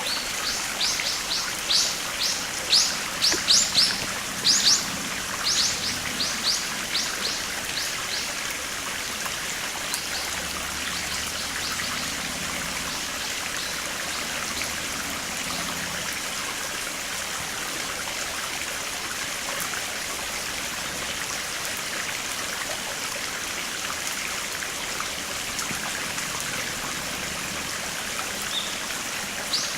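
Water of a small stream flowing steadily. For the first several seconds a bird gives a quick series of short, high, falling notes over it, louder than the water, and calls once or twice again near the end.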